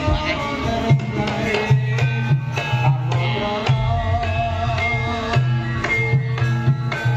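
Live Javanese campursari music: gamelan-style instruments holding sustained melody lines over a hand-played kendang drum beating a steady rhythm.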